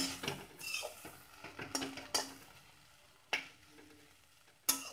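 A metal spatula stirring and scraping small fried potatoes around a metal pan, with about five sharp clanks against the pan that ring briefly, and faint frying between them.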